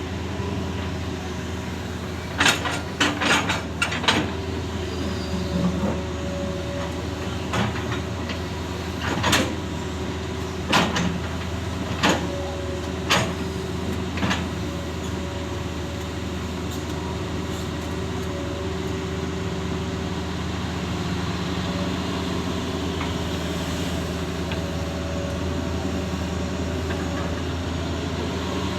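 Excavator's diesel engine running steadily, with a quick run of sharp knocks a few seconds in and a handful of single knocks over the next ten seconds, then just the steady engine.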